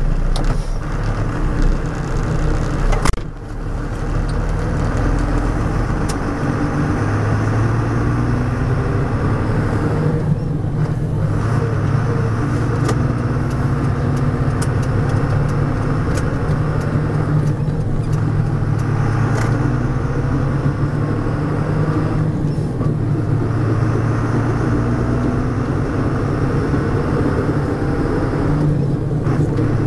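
MAN truck's D0836 inline-six diesel pulling under load through an Eaton Roadranger manual gearbox, with brief dips in the drive every several seconds as gears are changed. Underneath runs a whine from the drivetrain, which the owner puts down to a worn, poorly maintained differential.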